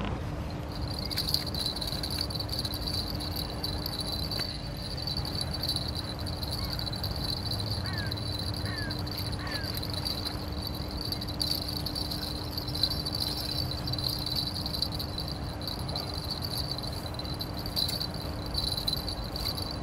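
Continuous high-pitched insect trill, cricket-like, over a steady low hum and outdoor rumble, with a few short bird chirps about halfway through.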